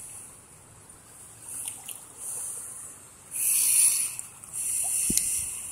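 Pond water trickling and splashing in short hissy bursts, the loudest about three and a half seconds in, with a dull knock just after five seconds.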